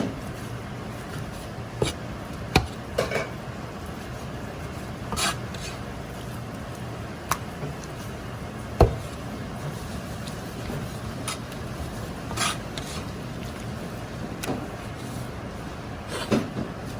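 Kitchen work: scattered knocks, clinks and scraping of utensils against bowls or cookware over a steady background noise. The sharpest knock comes a little under 9 seconds in.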